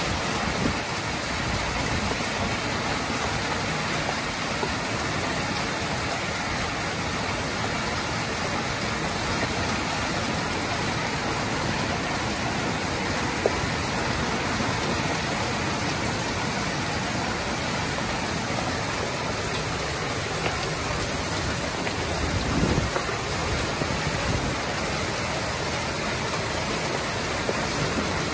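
Heavy rain pouring down in a steady, dense hiss onto paved ground and a parked car, with one sharp tap about halfway through.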